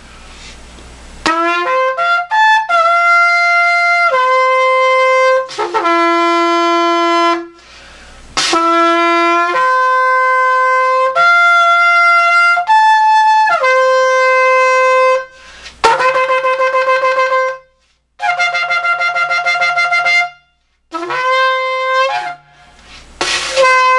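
A long twisted 42-inch shofar, repaired and re-tuned, blown in a chain of loud, brassy held notes. The notes jump up and down between several pitches, with short breaks between blasts, and some later notes have a fast flutter.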